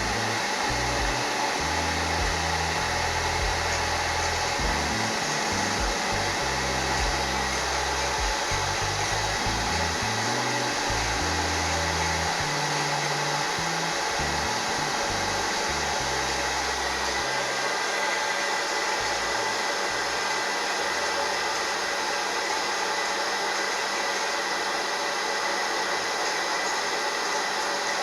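A hair dryer blowing steadily, drying the lace wig glue until it turns clear. An uneven low rumble runs under it and fades out about two-thirds of the way through.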